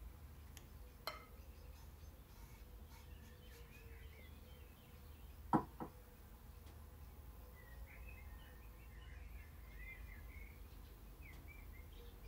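Quiet room tone with a light click about a second in and a sharper double knock about halfway, with faint chirping in the background.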